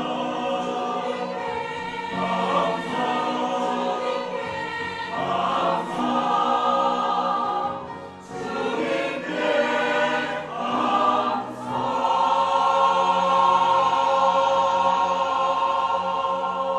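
Church choir singing an anthem in parts, with short breaks between phrases. About twelve seconds in they settle into a long held final chord.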